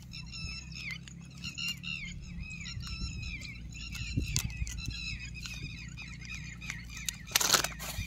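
Small birds chirping continuously in quick, repeated high calls, with a few sharp metal clicks from a fish lip gripper and pliers. A loud brief rustle comes about seven and a half seconds in.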